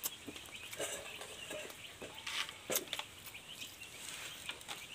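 A chicken clucking a few short times, with scattered small clicks of hand-eating at the table.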